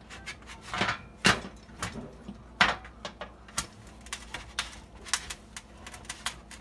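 A kitchen knife saws through a frozen French bread loaf: a run of sharp, irregular crunching strokes through the hard crust, loudest about a second and about two and a half seconds in. It is slow going with a knife that lacks a serrated edge.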